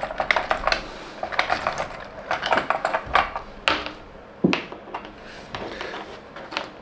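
Hand-cranked wooden automaton running, its cams, levers and wooden parts clicking and knocking irregularly as the crank is turned.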